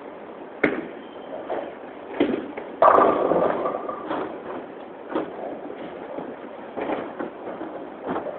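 Bowling alley noise: scattered sharp knocks and clatter of bowling balls and pins over a steady room murmur, the loudest a longer clatter about three seconds in.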